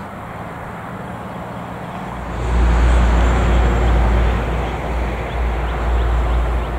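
EMD SD60E diesel locomotive approaching: a low engine rumble with a steady hum, growing much louder and heavier about two seconds in.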